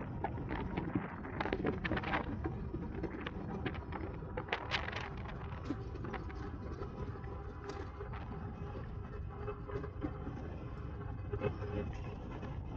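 A bicycle rolling along a paved path, heard from a camera on the bike: a steady low rumble of tyre and wind noise, with scattered light clicks and rattles, thickest in the first few seconds.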